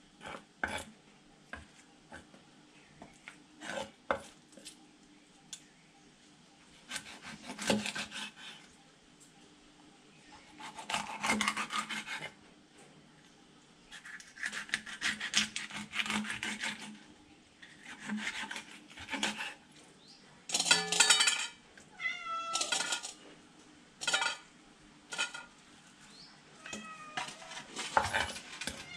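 A large knife chopping and scraping tilapia on a wooden chopping block, with scattered knocks and rasping strokes. In the second half a cat meows repeatedly.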